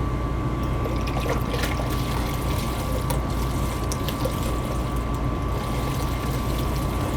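Vinegar pouring through a funnel into a furnace condensate pump to flush out slime, over the steady hum of the running gas furnace and a thin constant tone.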